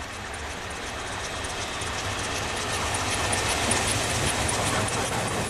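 Peppercorn A1 Pacific steam locomotive 60163 Tornado approaching at speed with its train, growing steadily louder, with a fast, even beat running through it.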